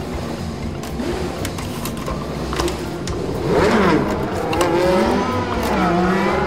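Electronic race-car engine revving sounds from a Lightning McQueen sound toy car, the pitch sweeping up and down and growing louder about three and a half seconds in, with light clicks of the plastic body being handled.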